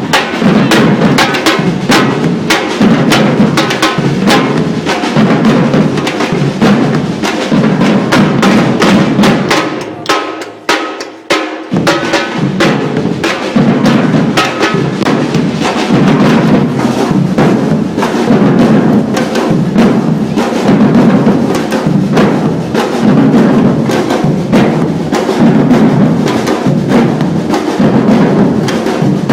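A percussion ensemble drumming together: deep drums pulse under dense, fast strokes on higher drums and clicky percussion. About ten seconds in, the deep drums stop for a couple of seconds, leaving only the lighter high percussion, then the full group comes back in.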